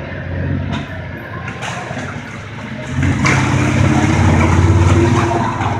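Kawasaki Teryx S LE side-by-side's 800 cc V-twin engine running while under way, quieter for the first three seconds, then picking up and pulling harder as the machine accelerates.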